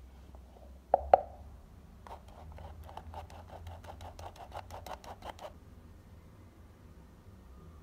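Hand-operated metal flour sifter: two sharp knocks about a second in, then the sifter's mechanism clicking rapidly and evenly, about six clicks a second, for some three seconds as flour is sifted.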